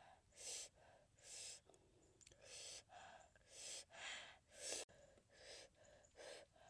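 A woman's faint, hissing breaths through pursed lips, repeated roughly once a second, about eight in a row: the puffing of someone eating meat dipped in fiery chili sauce.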